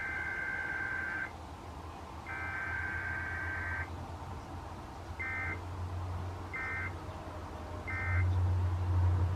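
NOAA Weather Radio Emergency Alert System SAME digital data bursts on a weather radio receiver: two warbling two-tone header bursts about a second and a half long, then three short end-of-message bursts. Faint static and a low hum sit under them, the hum louder near the end.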